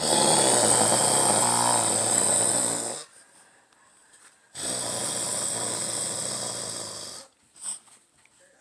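Two long, loud snores. The first lasts about three seconds; the second, a little quieter, starts about a second and a half after it ends and lasts about two and a half seconds.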